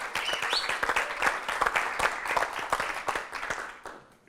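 Studio audience applauding, dense clapping that dies away near the end.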